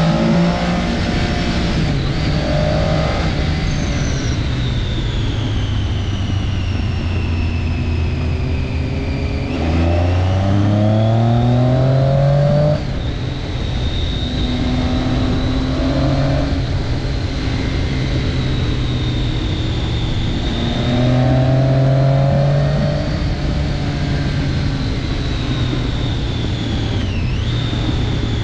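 Triumph Daytona 675 sport bike's inline three-cylinder engine under way, its pitch climbing hard as it accelerates about ten seconds in and dropping sharply a few seconds later, then rising again with another burst of throttle later on.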